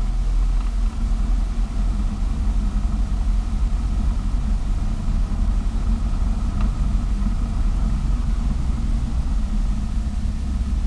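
Cessna 172S's four-cylinder piston engine running steadily at low taxi power while the plane rolls clear of the runway after landing.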